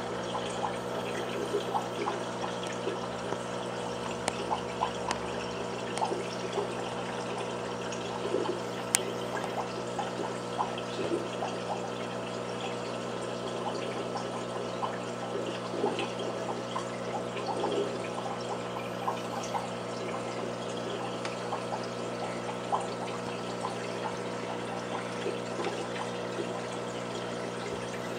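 Aquarium water trickling and bubbling steadily over a low hum, with many small pops throughout.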